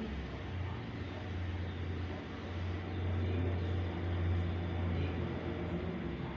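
A low, steady engine-like hum that grows louder about three seconds in and eases near the end.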